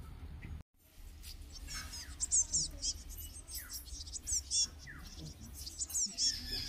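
Small birds chirping: short high chirps in quick runs, repeated every second or so.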